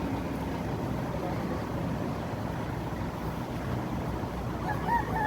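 Steady low rumble with a faint hum underneath, and near the end a baby starts to whimper.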